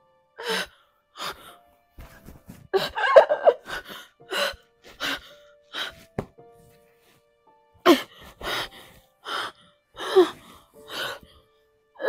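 A woman sighing and gasping in short, sharp breaths roughly once a second, with a brief wavering moan about three seconds in. Soft, held background music notes run underneath.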